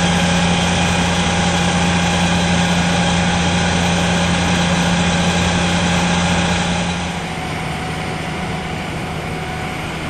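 Fire engine's engine running steadily at idle with an even, unchanging pitch. It becomes quieter about seven seconds in.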